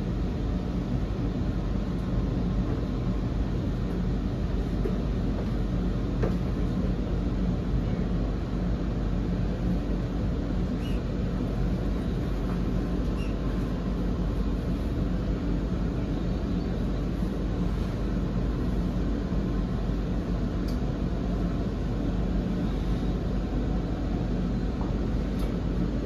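Sydney Trains electric suburban train running along the line, heard from inside the carriage: a steady rumble of wheels on rail with a low motor hum and a few faint clicks.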